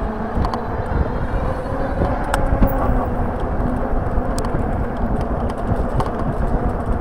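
Wind rushing over the microphone and tyre rumble from a Lankeleisi X3000 1000 W e-bike riding on a paved path, with a faint steady hum and a few small clicks and rattles.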